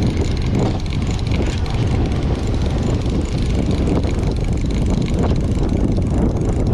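Boat engine running under way, a loud steady rumble mixed with a rushing noise.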